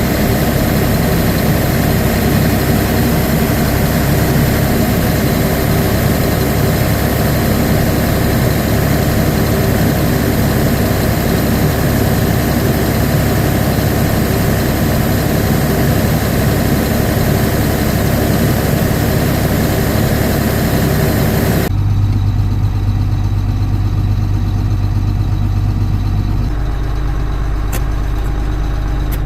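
Large farm machinery engine running steadily at a loud, even level. About 22 seconds in it cuts abruptly to a quieter, deeper engine hum.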